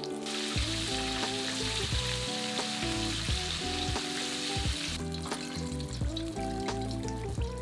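Flour-dredged chicken pieces deep-frying in hot oil, a dense steady sizzle that drops off sharply about five seconds in.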